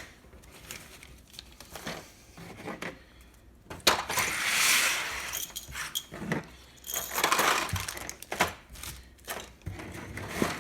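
Board game pieces being gathered and packed back into their box: scattered clicks and clatter of small plastic figures and wooden cubes, with two longer rustles about four and seven seconds in.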